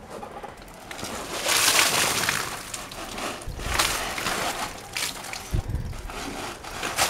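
Rainwater pooled in a sagging tarp roof, pushed up from below with a broom, pouring over the edge and splashing down. The main gush comes about a second and a half in, followed by a couple of shorter spills.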